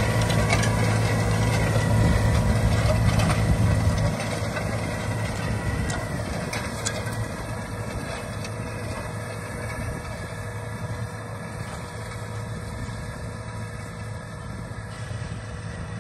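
John Deere 5085M tractor's four-cylinder diesel engine running under load while pulling a disc seeder, with a steady high whine on top. The sound drops noticeably about four seconds in, then grows gradually fainter as the tractor draws away.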